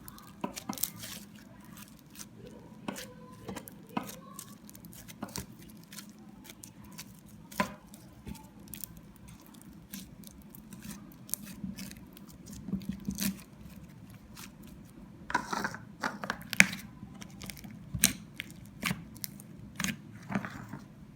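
Slime being pressed and stretched by hand, giving irregular sticky clicks and pops that come thicker and louder in the last few seconds.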